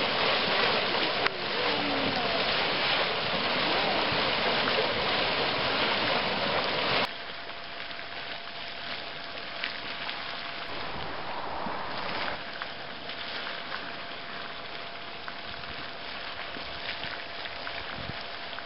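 Geothermal mud pot boiling: a steady hissing, bubbling and splattering of hot mud and steam. It is loud at first and drops suddenly to a quieter bubbling about seven seconds in.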